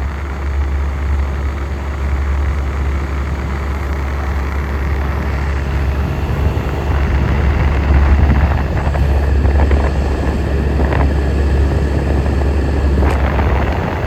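1967 Chrysler Airtemp Imperial window air conditioner running: a steady low hum from its Tecumseh compressor under the rush of its fan, a little louder past the middle, with a couple of short ticks near the end.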